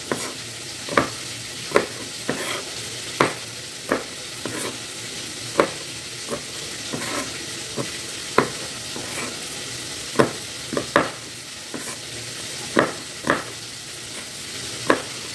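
Kitchen knife chopping red chillies on a plastic cutting board in sharp, irregular taps about once a second, over the steady sizzle of tilapia frying in oil.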